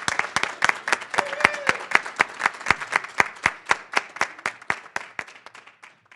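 Audience applauding. The clapping thins from a dense patter into a few hands clapping about four times a second, then cuts off suddenly.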